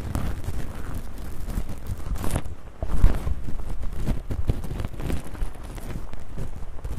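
ASMR ear-cleaning-style sounds: continuous, irregular fizzy crackling and scratching made of many short strokes, with a louder scrape about three seconds in.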